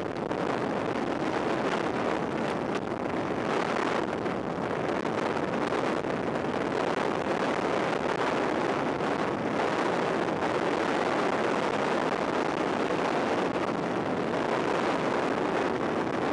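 Steady rush of wind buffeting a sunglasses camera's microphone as the rider descends at speed on a mountain bike.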